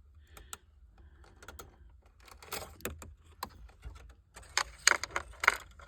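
Irregular clicks and rattles of a wire being pulled through behind the plastic dash trim, growing busier and loudest about five seconds in.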